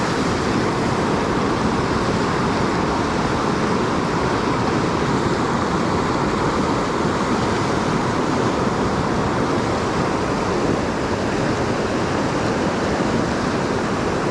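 Creek water rushing steadily at high flow.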